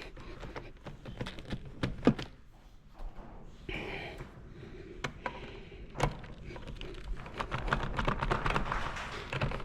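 Hand tools working on the connecting-rod bearing caps of a seized Farmall H engine: scattered metal clicks and knocks, thickening into a quick run of clicks in the last couple of seconds.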